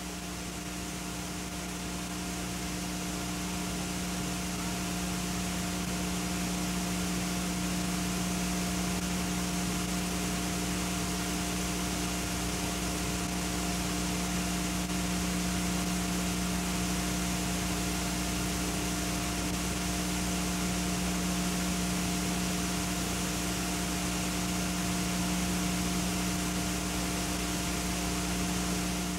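Steady hiss and electrical hum from an analog videotape with no program sound, rising slightly over the first few seconds and then holding even.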